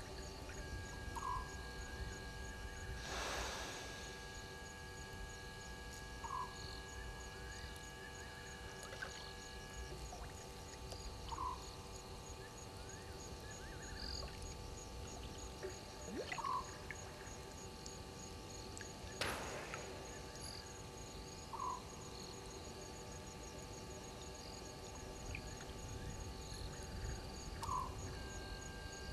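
Night-time bush ambience: a short call repeats about every five seconds over a steady, fast insect trill, with two brief rushing noises, about three seconds in and about nineteen seconds in.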